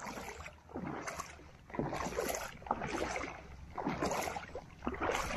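Shallow sea water splashing and lapping in short surges, about one a second, over a low steady rumble.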